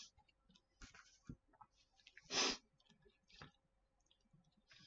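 Faint handling sounds of bagged comic books being shuffled: a few light clicks and one short plastic rustle about halfway through.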